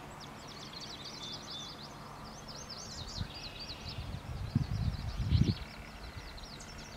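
Songbirds chirping and twittering continuously, many quick high notes, with a few low rumbling gusts about two-thirds of the way through that are the loudest sounds.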